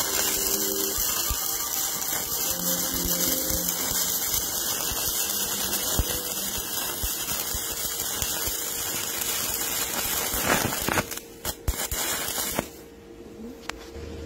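Stick (arc) welding on steel plate: the electrode's arc crackles and sizzles steadily, then stops about eleven seconds in, followed by a few sharp taps. Faint background music plays underneath.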